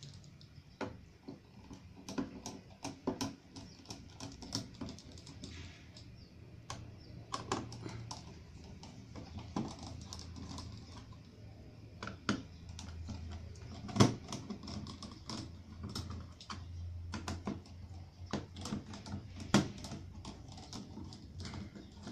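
Irregular light clicks and taps of a screwdriver and small metal parts against the steel chassis of an opened computer power supply as it is taken apart, with a sharper knock about 14 seconds in and another about 19 seconds in, over a faint low hum.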